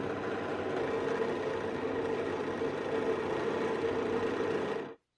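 Electric power tool motor running steadily with a whine, spinning a foam polishing pad while an epoxy resin handle scale is buffed against it. The sound cuts off abruptly near the end.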